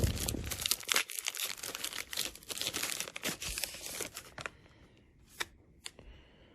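Sealed collectible mystery pack being torn open by hand: the wrapper crinkles and tears in a dense crackle for about four seconds. After that come a quiet stretch and two separate faint clicks.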